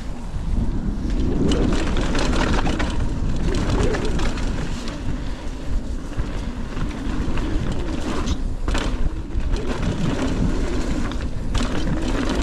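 Mountain bike riding a rough, bumpy trail: wind buffets the microphone and the tyres rumble on the dirt, with scattered knocks and clatter as the bike hits bumps. The noise rises about half a second in as the bike gets moving.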